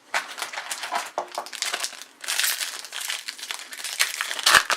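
Foil wrapper of an Upper Deck hockey card pack crinkling as it is opened and handled, a rapid crackly rustle.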